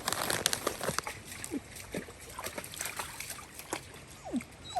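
River water splashing and running, with splashes in the first second, and a dog letting out a few short whines that fall in pitch.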